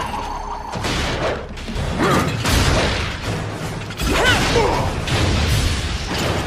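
Animated robot-fight sound effects: mechanical whirring and clanking with swooping whooshes and heavy hits, about two and a half and four seconds in, over a background score.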